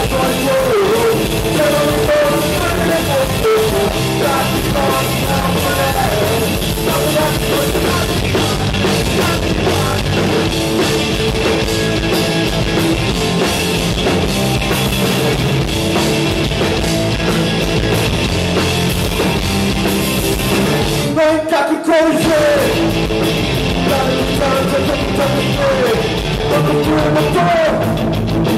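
Punk rock band playing live: electric guitar, bass guitar and drum kit, with a man singing. The band drops out for a moment a little before three quarters of the way through, the voice carrying over the gap, then comes back in.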